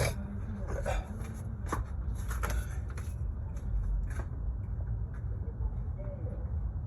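Handling noise: several short rustles and light clicks in the first three seconds, fewer and fainter after, over a steady low rumble.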